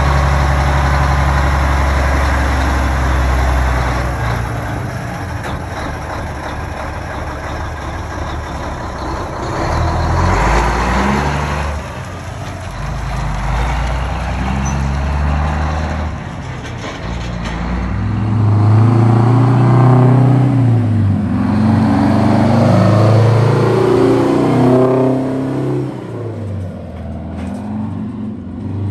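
Heavy truck engines running. Partway through and again in the second half, a truck accelerates, its engine note rising and falling as it pulls through the gears.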